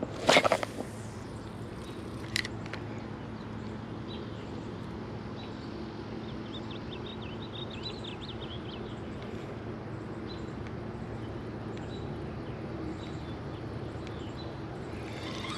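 Steady outdoor background noise with faint bird chirps in the middle. A loud, brief rustling knock comes near the start and a single sharp click about two seconds in.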